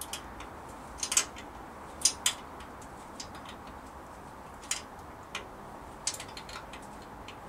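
Scattered sharp metallic clicks and taps from hand tools working on a bare Rover V8 aluminium engine block as a threaded plug is fitted. The loudest clicks come about one and two seconds in, with lighter ones through the rest.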